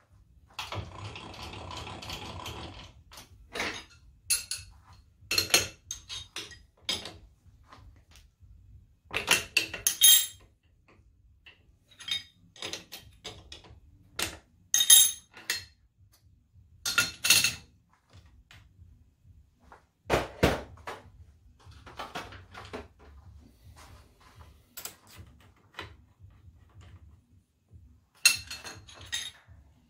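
Irregular metallic clinks and knocks of a tool change on a milling machine: the fly cutter is taken out of the spindle and an end mill fitted, with wrenches clinking on the collet chuck. A short rush of noise comes first.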